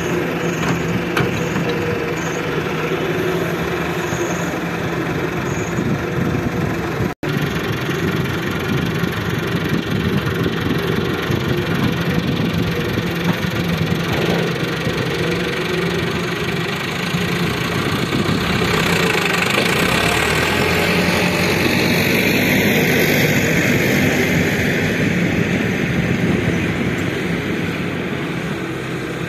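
Diesel engines of a Daewoo wheeled excavator and a farm tractor running steadily, getting louder for several seconds past the middle. The sound cuts out for an instant about seven seconds in.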